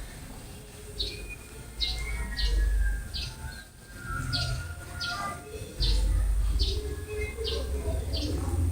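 A small bird chirping, short high notes repeated over and over, about two a second, over a low rumble.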